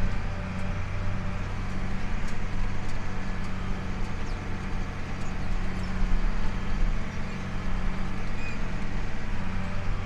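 Tractor engine running steadily under load while pulling a round baler that is picking up and rolling hay, the baler's machinery mixed in with the steady engine hum.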